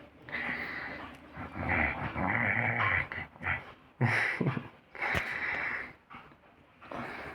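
A young cat growling and hissing in rough play fighting, in a run of separate bursts with short pauses between them.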